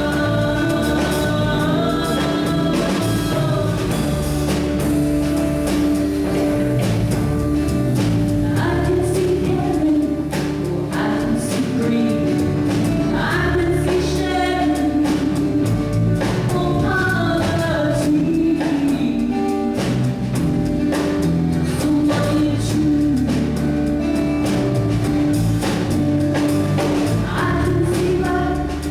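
Gospel-style song with voices singing over band accompaniment and a steady drum beat.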